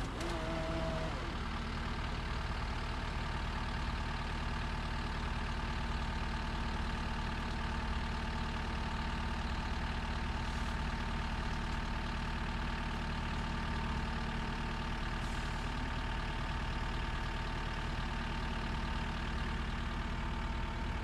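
Cat 289D3 skid steer's diesel engine running steadily at idle, freshly started after a head gasket replacement and a long crank while the fuel rail refilled. A brief tone sounds at the very start.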